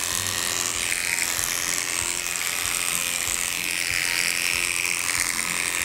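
Cordless electric dog clippers running steadily while clipping the coat behind a miniature poodle's ear. The buzz shifts in tone as the blade moves through the hair.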